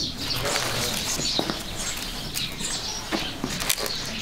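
Birds chirping over irregular light knocks and clicks.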